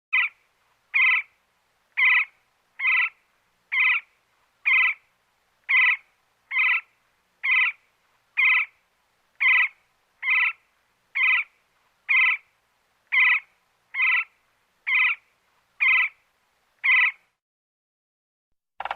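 Woodpecker calling: a short, nasal call repeated evenly about once a second, nineteen times, then falling silent near the end.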